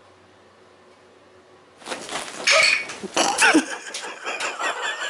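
Quiet room tone, then about two seconds in a sudden loud outburst of people's voices exclaiming and laughing, which carries on to the end.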